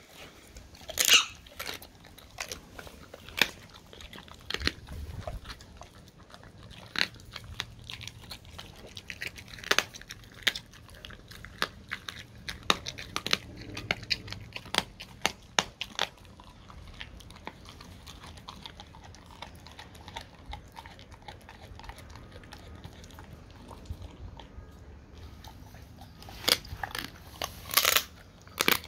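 A dog chewing raw turkey wings cut in half, the bones crunching between its teeth in irregular bites. The crunching thins out after about the middle, and a few loud crunches come near the end.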